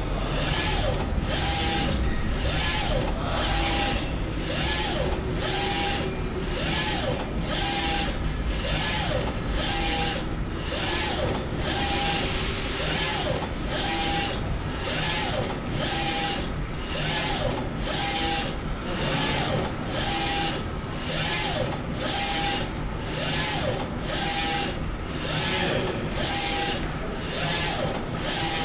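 UV flatbed printer's twin-printhead carriage shuttling back and forth across the bed while printing, a rhythmic whir repeating about every two-thirds of a second. A motor whine rises and falls with each pass over a steady machine hum.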